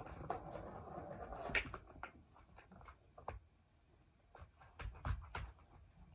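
A cat scuffling on a plastic ball-track toy: a rustling scrabble for about two seconds with a sharp plastic click, then scattered clicks and knocks, and a couple of soft thumps about five seconds in.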